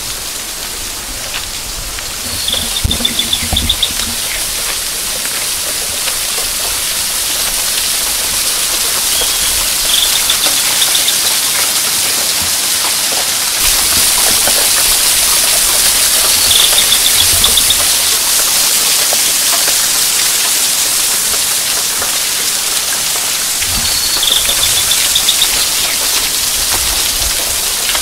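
Water pouring down a wet rock face and splashing onto the rocks and stones below: a dense, steady hiss that slowly grows louder. A short, high chirping trill comes four times over it.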